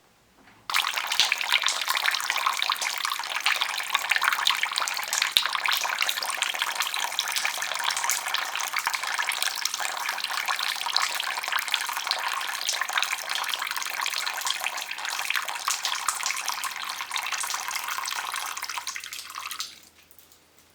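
Water running steadily from a tap, a dense even splashing hiss that starts abruptly just under a second in and is shut off about a second before the end.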